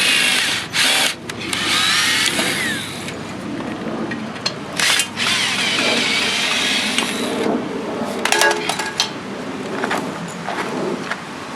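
A power tool runs in three long bursts with a shrill, wavering squeal while an aluminum table is taken apart for scrap. A few sharp metal clanks follow about eight seconds in.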